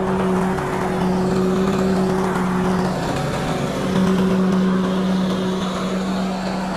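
Lawn mower engine running steadily at working speed, its steady tone dropping away for about a second around three seconds in before picking up again.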